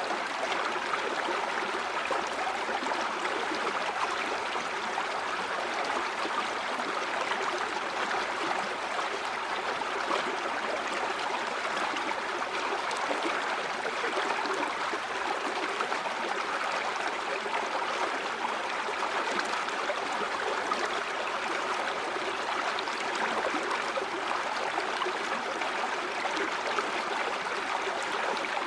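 A stream of water running steadily over stones, a continuous even rush with light gurgling.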